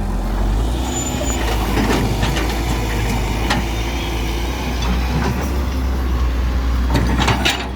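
Diesel engine of a JCB backhoe loader running steadily under work while it loads mud, with scattered knocks and clatter, the loudest cluster near the end.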